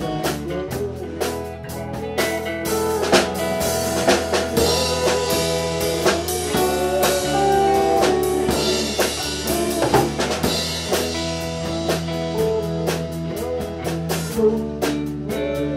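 Background music: a blues-style band with electric guitar, bass and a steady drum-kit beat.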